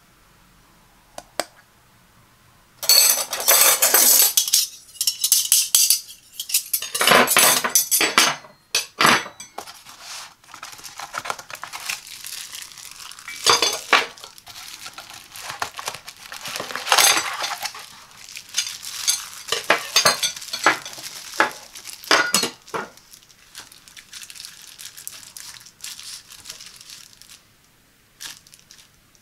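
Stainless steel dinner knives in clear plastic sleeves being handled and laid out on a table: crinkling of the plastic wrap mixed with clinks and taps of the metal knives against each other and the tabletop. It starts about three seconds in and thins out near the end.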